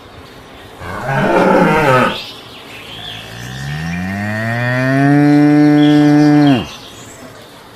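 Dairy cows mooing: a short, rough moo about a second in, then a long moo that rises in pitch, holds steady for about three seconds and cuts off sharply.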